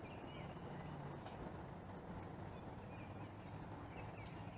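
Quiet pond ambience: small groups of faint, short, high chirps from distant calling animals come a few times over a low steady hum.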